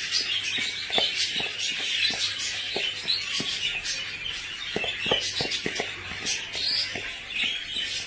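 Many small cage birds chirping and chattering continuously, with scattered light clicks and scrapes of a metal spoon stirring dry crumbly egg food in a plastic bowl.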